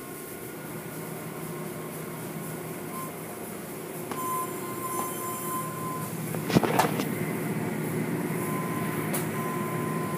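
Automatic car wash machinery running: a steady mechanical hum with a thin whine that comes and goes, and a single sharp clunk about six and a half seconds in.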